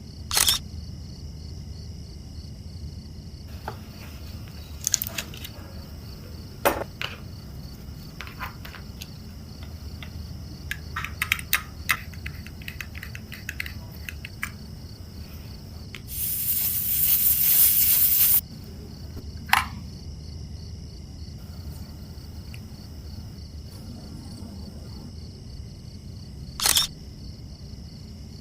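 Small metal tools clicking and tapping on a watch during servicing: scattered sharp clicks, a quick cluster of them near the middle, and a hiss lasting about two seconds a little past the middle, the loudest sound here.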